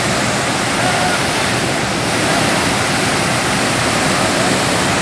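Large multi-tiered waterfall in heavy flow, muddy water pouring over broad rock ledges: a steady, loud rushing of falling water.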